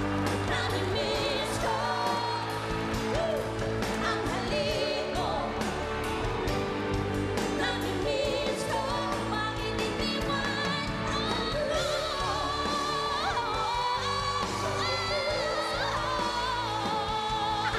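A woman belting a Filipino pop ballad into a microphone with wide vibrato, over pop band accompaniment with a steady beat.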